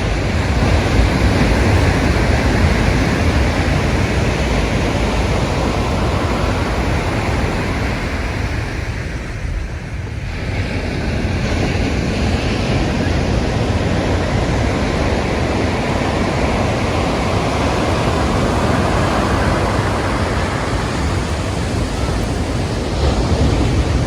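Ocean waves washing in and breaking, a continuous surf wash with a deep rumble; it eases briefly near the middle and then swells again. Wind buffets the microphone.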